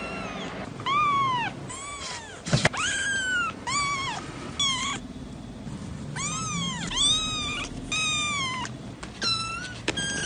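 Young kittens mewing: about a dozen short, high-pitched meows, each rising and then falling in pitch.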